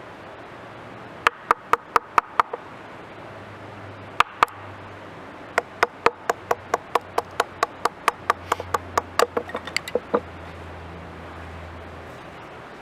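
Rapid series of sharp knocks like tool strikes: about six in quick succession, two more a moment later, then a run of about twenty at roughly four a second that ends in quicker, lighter taps.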